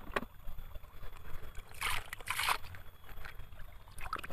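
Sand being scraped and shifted by hand in a toy sand truck's load, in short rustling bursts, loudest about two seconds in.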